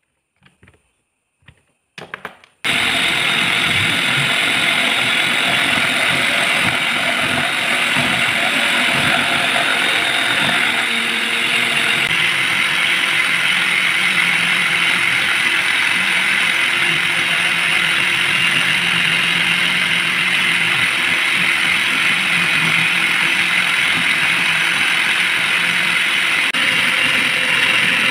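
A mini hobby lathe starts up about two and a half seconds in and runs steadily, turning a threaded bolt held in its chuck against a cutting tool. Before it starts there are a few faint clicks as the bolt is set in the chuck.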